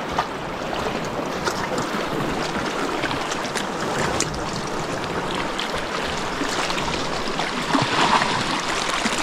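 Sea waves washing on the shore, a steady rush of water.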